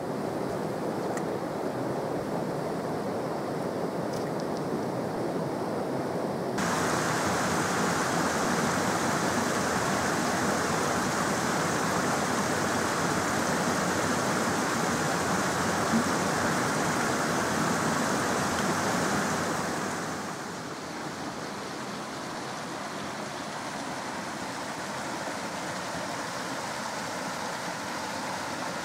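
Steady rush of water in a fast-flowing moorland beck. The sound turns suddenly louder and brighter about six seconds in, then drops back quieter about twenty seconds in.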